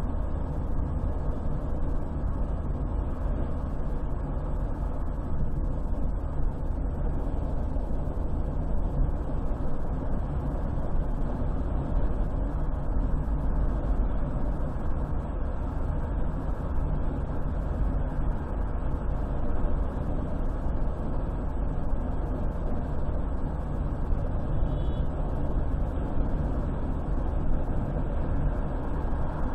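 Car driving along a highway: steady engine and tyre rumble with road noise, unchanging throughout.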